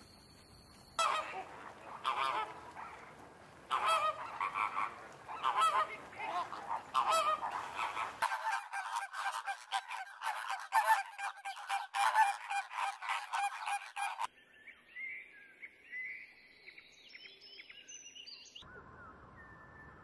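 A flock of flamingos honking: separate calls at first, then a dense, overlapping chorus that cuts off abruptly about two-thirds of the way through. Thinner, higher chirping bird calls follow.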